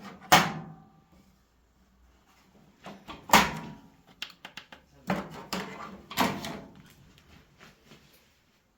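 A run of sharp knocks and clacks from handling hard fittings, about five loud strikes with a short ring after each: one near the start, one about three seconds in, and a quick cluster between five and six and a half seconds, with a few smaller clicks between them.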